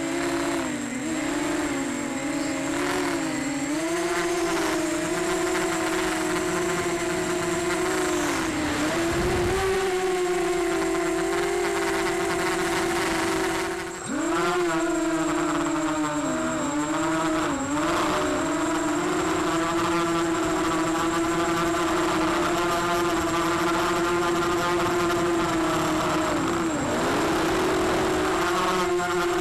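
Emax Nighthawk 280 Pro FPV quadcopter's brushless motors and propellers buzzing steadily, the pitch rising and dipping as the throttle changes. About fourteen seconds in the throttle is chopped briefly, the buzz dropping in pitch and loudness before climbing straight back.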